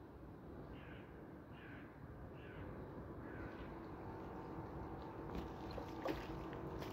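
A crow cawing four times, short calls falling in pitch, a little under a second apart. Near the end come a few sharp clicks and crackles close by.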